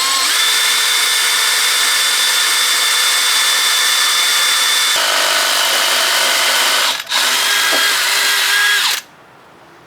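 Electric hand drill boring into a corrosion-seized, snapped-off screw, running steadily with a high whine that drops in pitch about halfway through as the bit loads up. It stops for a moment near seven seconds, runs again, and cuts off about a second before the end.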